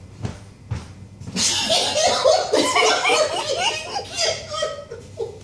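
A person laughing: a couple of short sharp sounds, then a fit of high-pitched, quickly wavering laughter that breaks out about a second and a half in.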